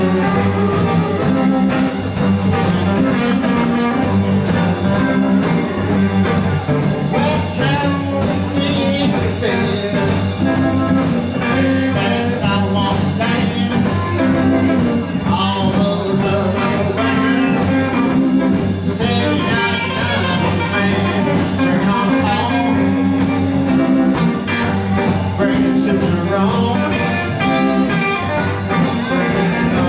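Live electric blues band playing: electric guitar over bass and drums, with a male voice singing.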